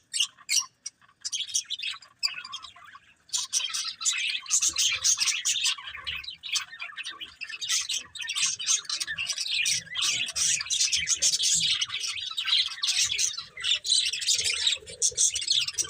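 Budgerigars chirping and chattering: a few scattered chirps at first, then a dense, unbroken run of rapid chatter from about three seconds in.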